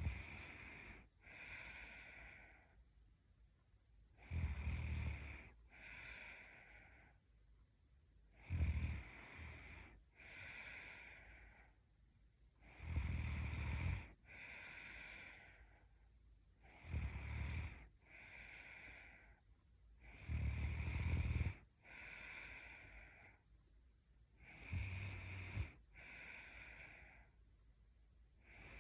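A young woman snoring in her sleep: a loud, rumbling snore followed by a softer breath about a second and a half later, repeating steadily about every four seconds.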